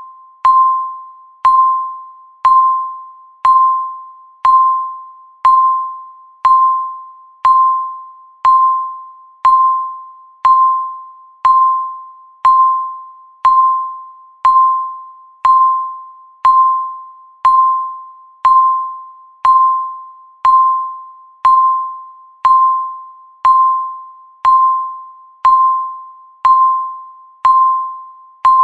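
Countdown timer's tick sound: a single bright, bell-like ding struck once every second, each fading away before the next.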